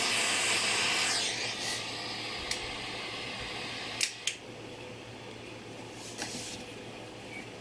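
Piezo-ignition gas torch flame hissing, cut off about a second in as the torch is taken away or shut off, after the solder has flowed onto the pin. A few sharp clicks follow a couple of seconds later.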